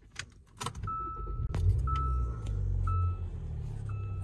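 2016 Hyundai Santa Fe's 2.4-litre four-cylinder engine starting about a second and a half in and then idling steadily, while a dashboard warning chime beeps about once a second.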